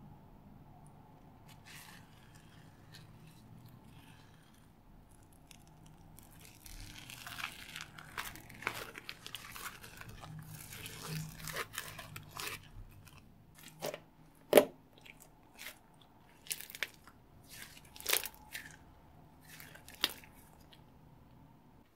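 Aged, bubbly slime being pulled out of a plastic tub and squeezed in the hands: faint at first, then a run of fine crackling as the foamy strands tear apart, then a series of separate sharp pops from the trapped air in the second half.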